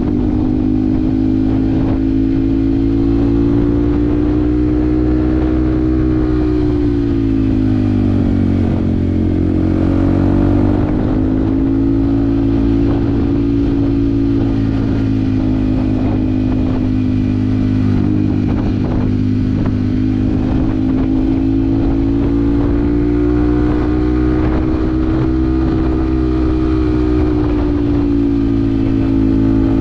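Yamaha WR155R's single-cylinder engine running under way, its note steady with gentle dips and rises in revs, the biggest dip about seven seconds in.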